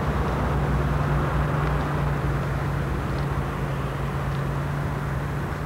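Steady outdoor background noise: a low, even hum under a broad hiss, with no distinct events.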